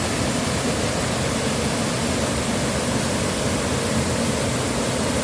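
Waterfall, water falling and rushing in a steady, unbroken noise.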